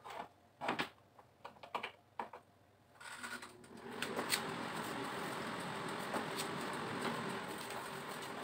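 A few clicks and knocks as the air fryer basket is pushed in. About three seconds in, the air fryer's fan starts and runs steadily.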